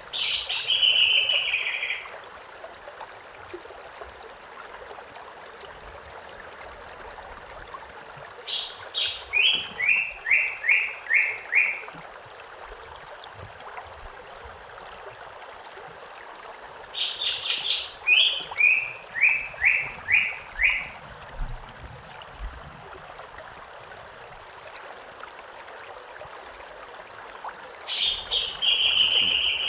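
A songbird repeating the same song phrase four times, about every eight to ten seconds, over the steady rush of a running stream. Each phrase opens with a quick burst of high notes and then drops into a run of five or six evenly spaced lower notes.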